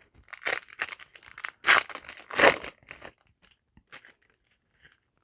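Foil trading-card booster pack wrapper being torn open and crinkled, in several loud rustling bursts that thin to light handling noise near the end.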